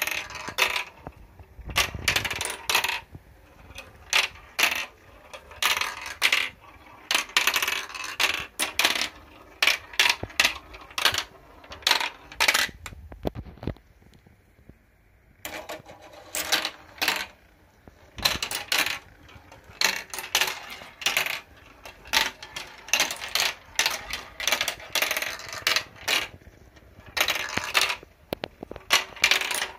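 Small balls rolling and clattering down a plastic marble-run tower: quick clicks as they drop onto chutes and curves, and rattling runs through the tubes and funnels. The clatter eases off about halfway, then starts again abruptly a couple of seconds later.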